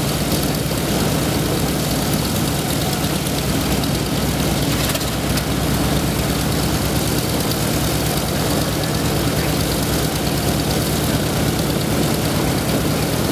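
B-24 Liberator's Pratt & Whitney R-1830 Twin Wasp radial engines running steadily on the ground, a continuous even propeller and engine drone.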